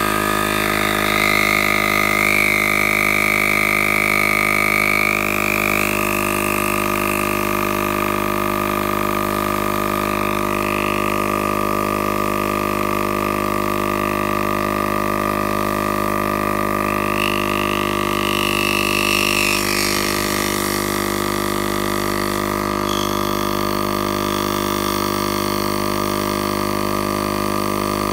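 Slime Elite Heavy Duty tire inflator's compressor motor running steadily, a loud hum with a high whine over it that shifts in pitch a few times, as it pumps a tire up from about 14 to 27 PSI.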